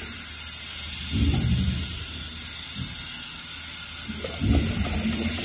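A steady high hiss, with low thumps about a second in and again near the end.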